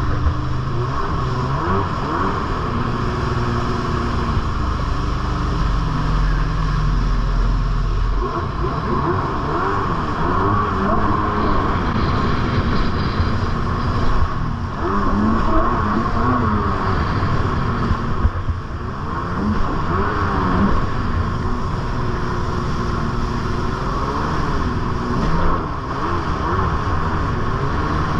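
Jet ski engine running hard at speed, its pitch rising and falling again and again as the throttle works across a boat's wake. Water spray and wind rush over it throughout.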